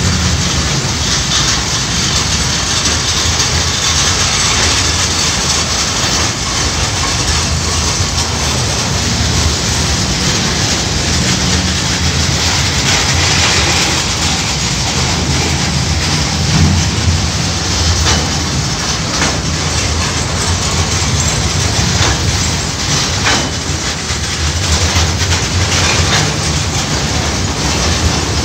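KiwiRail coal train's container wagons rolling past at close range: a steady rumble and rattle of steel wheels on the rails, with scattered clacks as the wheels pass over rail joints.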